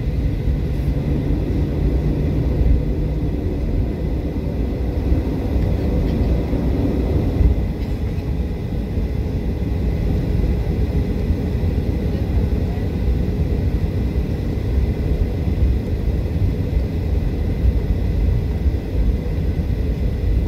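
Cabin noise of a Boeing 737-800 taxiing: its CFM56-7B engines run at taxi power over a steady low rumble. A low hum drops out about three seconds in.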